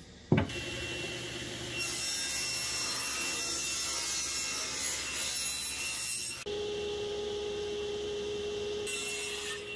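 SawStop table saw running and cutting through a small board, a steady whir of motor and blade with the cut noise rising and falling. A sharp knock comes just after the start, and the sound changes abruptly about two and six and a half seconds in.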